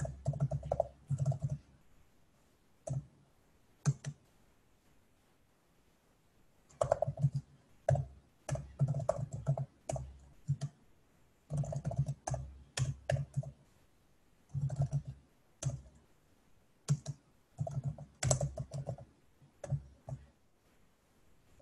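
Typing on a computer keyboard: runs of keystrokes in short bursts, broken by pauses of a second or two, the longest a couple of seconds about a third of the way in.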